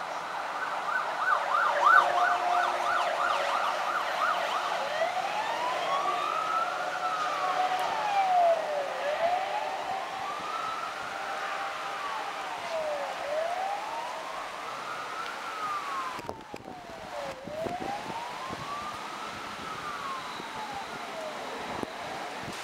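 Emergency vehicle siren: a fast warble for the first few seconds, then a slow wail rising and falling about every four seconds, over the steady hiss of a heavy downpour.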